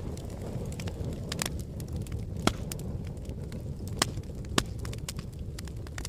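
Wood fire burning in a metal fire box: a steady low rush of flame with sharp crackles and pops, three of them louder from about halfway through.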